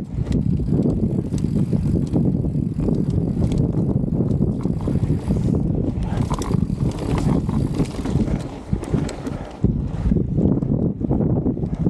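Wind buffeting the microphone outdoors, a steady low rumble that rises and falls unevenly, with a few faint clicks about halfway through.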